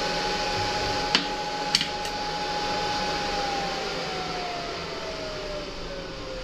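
Steady whirr of a MIG welder's cooling fan still running after the weld, its whine starting to sink in pitch about halfway through as it spins down. Two sharp metal clinks from handling the freshly welded steel piece, about a second in and again shortly after.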